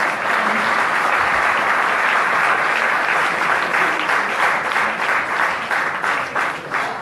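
Audience applauding loudly, a dense steady clapping that thins out into separate claps near the end.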